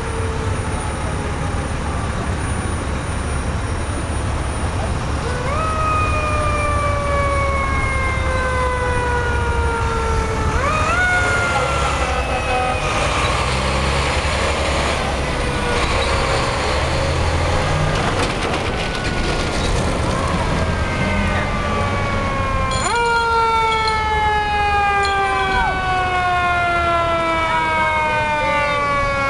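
Fire engine siren approaching and getting louder: it winds up quickly, then winds down slowly over several seconds, three times. Midway, a diesel tractor-trailer passes with an engine rumble.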